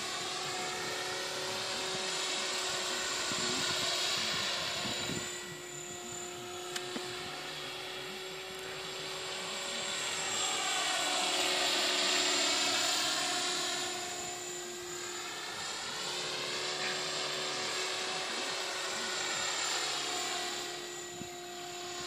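Electric RC model helicopter (Mikado Logo 400) flying, with a steady high motor whine and rotor hum. The sound swells and fades as it passes by and is loudest about halfway through.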